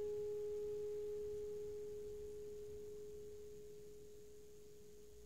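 Metal singing bowl ringing out with one steady, pure tone that slowly dies away.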